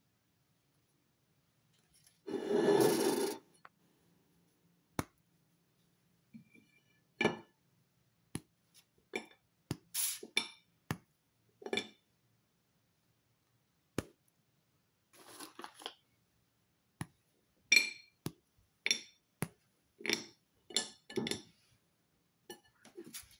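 Squares of a milk chocolate bar being snapped off by hand and set down on a ceramic plate: a louder scrape about two seconds in, then a string of short sharp snaps and light clinks against the plate.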